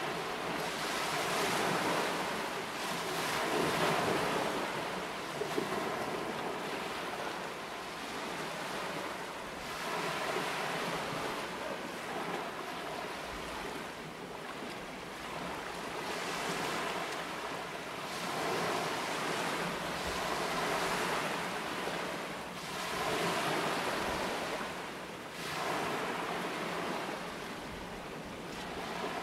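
Sea water rushing and splashing along the hull of a fishing boat under way, swelling and easing every few seconds, with wind on the microphone and a faint steady low engine hum underneath.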